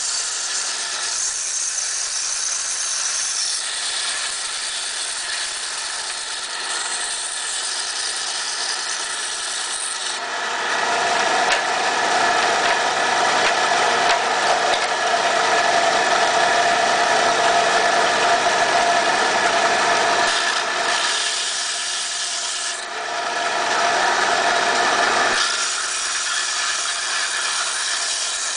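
Inland DFS-100 frag band saw running and cutting through coral rock: a steady hiss that turns louder and harsher for about ten seconds from roughly ten seconds in, and again for a few seconds near the end, as the blade bites into the rock.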